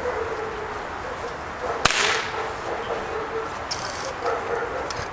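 A single sharp crack about two seconds in, over a German shepherd's high whining that comes and goes.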